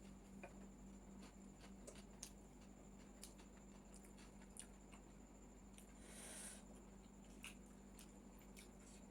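Near silence with faint eating sounds: scattered light clicks and scrapes of a spoon on a plate, and a short hiss about six seconds in.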